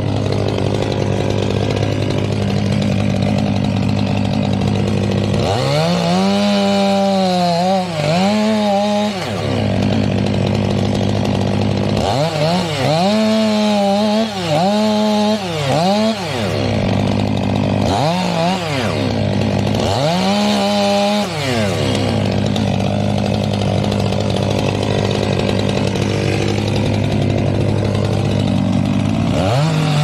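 Stihl MS 500i fuel-injected two-stroke chainsaw running at high throttle while cutting through tree stumps, its engine pitch dipping and recovering in a series of swells as the chain loads up in the wood, with a steady buzz between. The pitch climbs again near the end.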